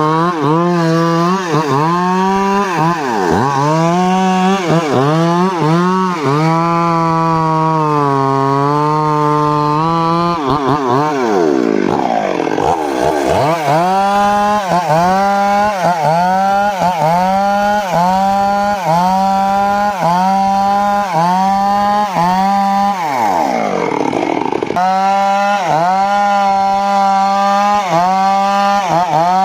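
Homemade circular saw cutting teak wood: a loud, steady whine whose pitch dips and recovers about once a second as the blade bites into the wood, held lower for a few seconds at one point, and with two deeper sweeping drops midway and near the end.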